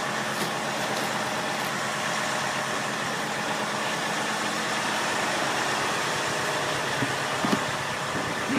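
An engine running steadily. A few light knocks near the end come from screwdrivers working at the bung of a plastic drum.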